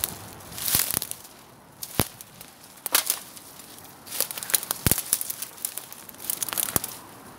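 Footsteps crunching through dry leaf litter and dead plant stems, with a sharp twig snap every second or two at irregular intervals.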